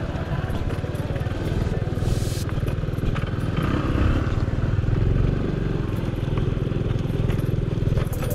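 Small motorbike's engine running at low speed while the bike rides over a rough road of loose broken rock, with clicks and knocks from the stones under the tyres.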